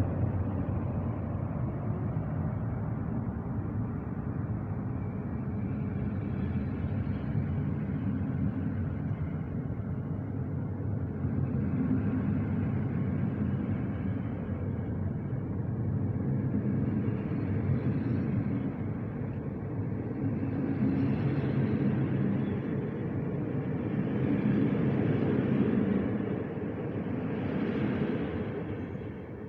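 Passenger train hauled by an electric locomotive rolling past a station platform: a steady low rumble of wheels and coaches on the rails that swells and dips and fades near the end.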